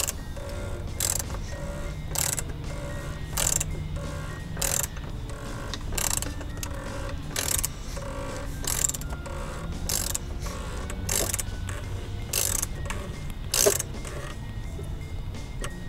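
Ratchet wrench tightening the oil filter housing cap on a BMW N52 engine. It makes a short clicking burst on each back-swing, about a dozen strokes roughly once a second, stopping near the end.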